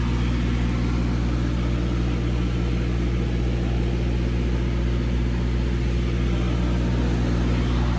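Semi-truck diesel engine idling steadily: a low, even hum that does not change.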